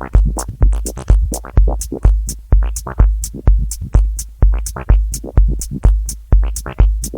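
Analogue drum machine and monophonic analogue synthesizer playing electronic music together. A deep kick drum hits about twice a second, with short hi-hat ticks between, under a line of short, plucky synth notes.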